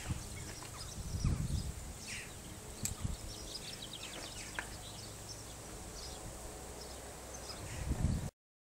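Outdoor ambience: a low rumble of wind on the microphone, with faint bird chirps and a few light clicks. The sound cuts off abruptly near the end.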